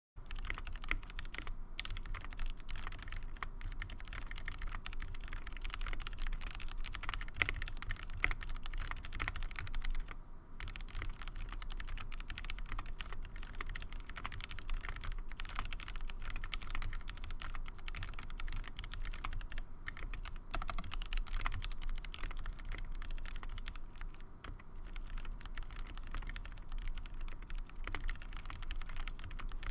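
Typing on a ZZ96 mechanical keyboard with 67g Gateron Clear linear switches and GMK Olivetti doubleshot ABS keycaps: a fast, continuous stream of key clacks, with a brief pause about ten seconds in.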